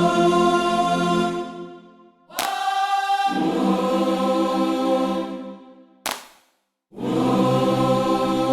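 Music: sustained choir-like chords, each held for about two seconds, broken by short gaps with a sharp hit between them.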